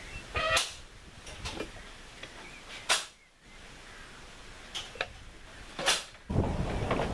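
A few sharp, isolated clicks spaced a second or more apart. Near the end a steady rumble of a narrow-gauge steam train cuts in suddenly.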